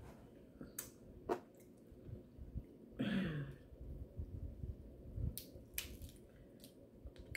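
Crab leg shells cracked and snapped apart by hand, giving sharp clicks, mostly in the second half, over soft chewing. A brief falling vocal sound comes about three seconds in.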